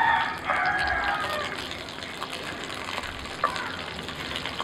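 Oil and butter sizzling in a steel frying pan as cauliflower steaks fry, with a spatula scraping and tapping them and a sharp tap about three and a half seconds in. A chicken calls loudly over it for the first second or so.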